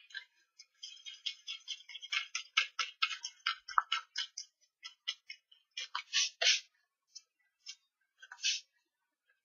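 An adhesive eraser block rubbed in short quick strokes over cardstock, lifting leftover glue residue. There is a fast run of scratchy rubs, about three to four a second, for the first few seconds, then a few scattered strokes.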